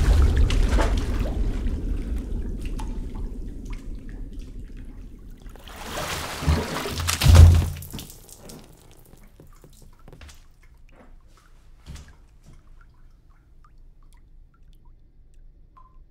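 Bathwater sloshing and splashing in a clawfoot tub as someone is held under, dying away over the first few seconds. About seven seconds in comes a louder splash with a low thud, then scattered faint drips.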